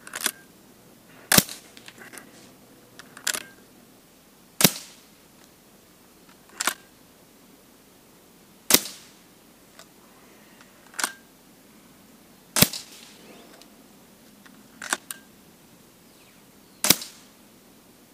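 Weihrauch HW100 sub-12 ft-lb pre-charged pneumatic air rifle firing five shots, a sharp crack roughly every four seconds. A lighter click comes a second or two before each shot.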